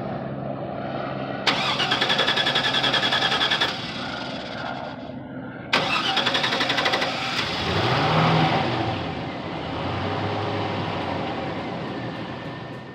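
Truck engine being cranked by its starter in two long attempts, with a rapid pulsing rhythm. It catches on the second try, revs up briefly about eight seconds in, then settles to running. This is a slow, hard start that persists despite a new fuel filter, spark plugs and plug wires.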